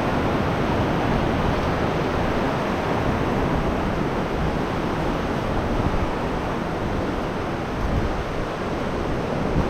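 Ocean surf surging through rocks at a cave mouth, a steady loud rushing of water.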